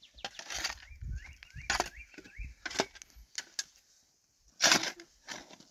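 A spade scraping and striking into stony soil several times, the loudest stroke near the end. A bird chirps a quick run of rising notes about a second in.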